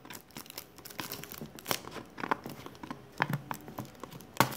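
Plastic label being peeled and torn off a plastic Brisk tea bottle in the hands: irregular crinkling and tearing crackles, with a sharper crackle near the end.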